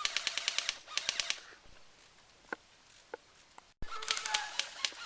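Airsoft gun firing on full auto in three short bursts of rapid, evenly spaced clicks, about a dozen shots a second, with two single shots in between.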